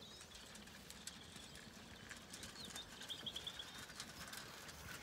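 Zwartbles sheep and lambs eating feed from a trough: faint crunching and clicking throughout. A short, quick bird trill sounds about three seconds in.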